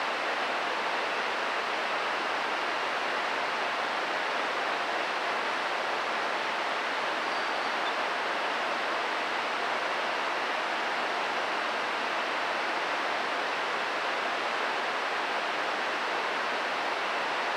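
Steady, even hiss of background noise that does not change in level or pitch.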